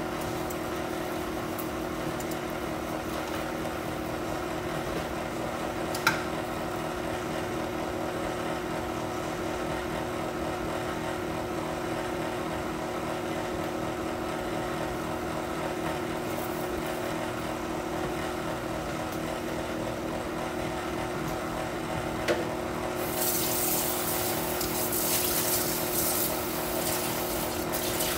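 Electric stand mixer running steadily, its motor humming at a constant pitch as it beats chocolate cake batter in a steel bowl. Two sharp clicks, about six seconds in and about twenty-two seconds in, and a louder hissing rush over the last five seconds.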